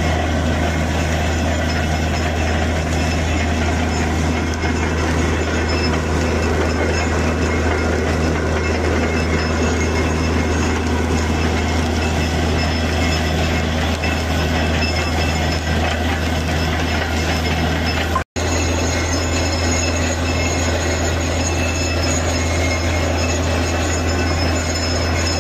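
Borewell drilling rig running loud and steady: a deep drone under a continuous rushing noise, while mud slurry is driven up out of the bore around the drill pipe.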